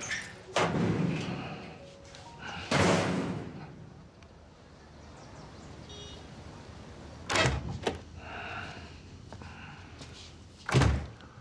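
A key working a door lock and a door swinging open, then a couple of sharp door thuds about seven and a half seconds in. A wooden door slams shut near the end, the loudest sound.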